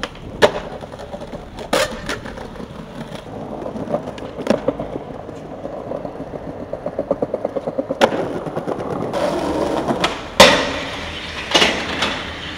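Skateboard rolling on concrete, with sharp clacks of the board popping and landing several times; the loudest impact comes about ten seconds in. A quick run of even clicks comes between about six and eight seconds.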